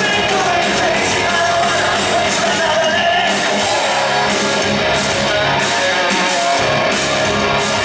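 Pop-punk band playing loud rock music live, with a singer's voice over the band, heard from within the audience.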